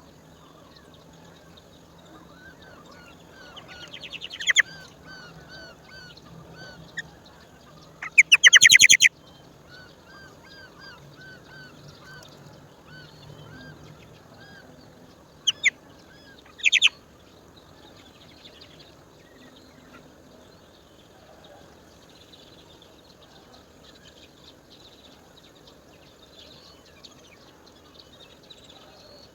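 Indian roller giving loud, rapid rattling calls: a short one about four seconds in, a longer burst around eight seconds in, and two short ones near sixteen seconds. Smaller birds chirp faintly and repeatedly in the background.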